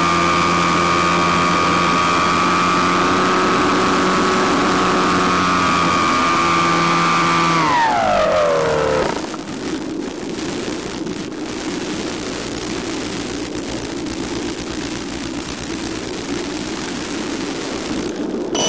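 Electric motor and propeller of an FPV RC plane whining steadily under power, then spooling down with a falling pitch about eight seconds in as the power is cut. The plane glides with only a steady rushing noise, and the motor spins back up with a rising whine right at the end.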